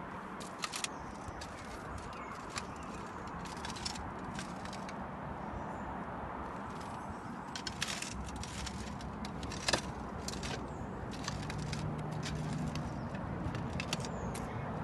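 Outdoor background rush with scattered light clicks and crackles, and a low steady hum that comes in about eight seconds in.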